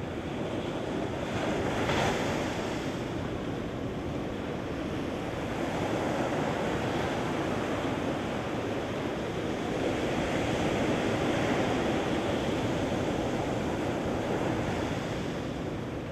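Ocean surf breaking and washing up a sandy beach, a continuous rushing wash that swells and eases several times, sharpest about two seconds in.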